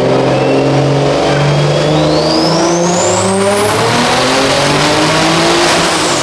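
High-powered car doing a full-throttle pull on a chassis dyno: the engine revs up steadily with a high whine climbing in pitch, then lets off near the end as the whine falls away.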